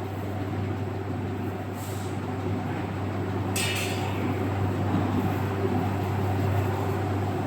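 Forging-shop machinery running with a steady low hum and rumble. Two brief high-pitched sounds break in, about two seconds in and again about a second and a half later.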